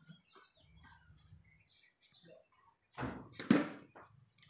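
A single sharp knock about three and a half seconds in, over faint outdoor noise with a few short bird chirps.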